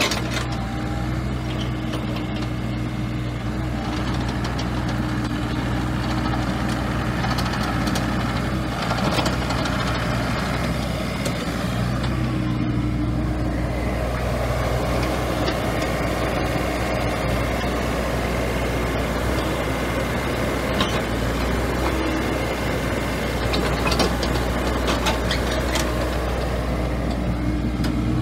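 2018 Bobcat E35 mini excavator's diesel engine running steadily under the hydraulics as the machine tracks and turns, with a few short clanks along the way.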